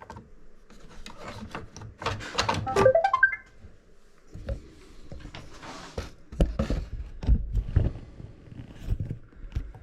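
Plastic knocks, clicks and thunks as the Roomba 675's bottom cover is handled and fitted back over the robot vacuum's housing, with a short rising squeak about three seconds in and a run of heavier thumps past the middle.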